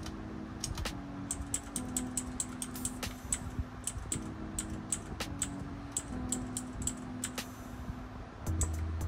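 Computer keyboard keys pressed in quick, irregular taps, as when stepping through a BIOS settings menu, with soft background music underneath.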